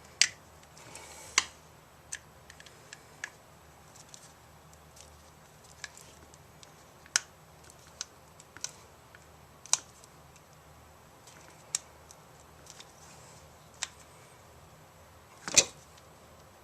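Scattered sharp clicks and taps of hand tools and a plastic plug being handled while wiring an extension cord's cord cap, irregular and a few seconds apart, with a heavier knock near the end.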